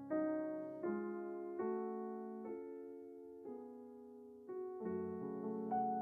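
Slow, soft solo piano music: sustained chords that ring and fade, a new one about every second, with quicker notes coming in near the end.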